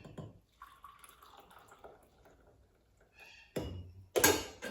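Freshly brewed espresso machine coffee being poured into a cup, a faint trickle, followed by two sudden knocks near the end as crockery is set down.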